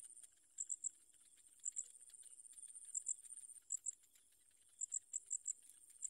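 Insects chirping: a steady, very high-pitched buzz that breaks off and resumes, with short high chirps in groups of two or three about once a second.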